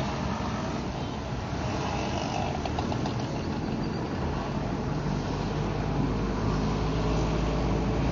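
Slow-moving street traffic: car and motorcycle engines running with a steady low rumble and tyre noise on a wet road.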